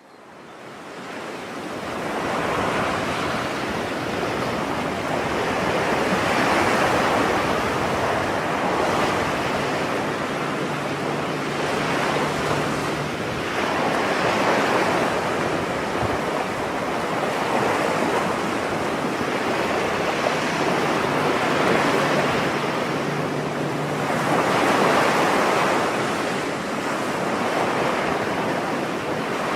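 Sea surf washing onto the shore, swelling and easing about every five or six seconds.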